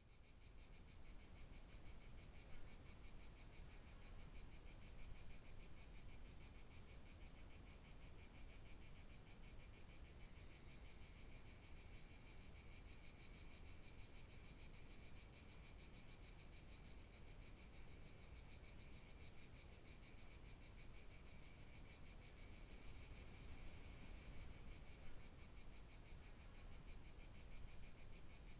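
Faint insect chorus: a continuous high-pitched, fast-pulsed chirring with a fainter, lower trill beneath it.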